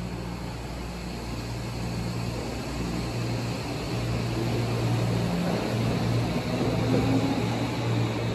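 Tokyo Metro Hibiya Line subway train pulling out of the station platform: a low electrical hum with running noise that grows steadily louder as the train picks up speed.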